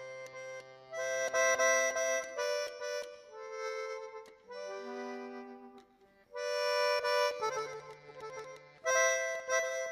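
Button accordion playing the instrumental intro melody in held chords, phrase by phrase, with short breaks between the phrases and a brief near-pause about six seconds in.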